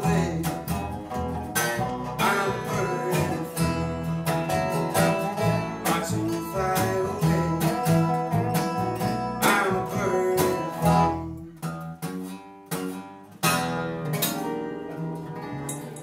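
Acoustic bluegrass band playing an instrumental passage: banjo rolls, acoustic guitar, resonator guitar (dobro) and upright bass. The playing thins out about eleven seconds in, then a final chord is struck a couple of seconds before the end and left ringing.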